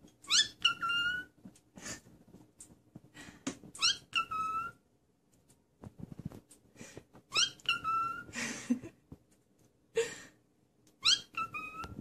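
A cockatiel calling four times, about three and a half seconds apart: each call is a quick rising whistle ending in a short held note. Small clicks and rustles come between the calls.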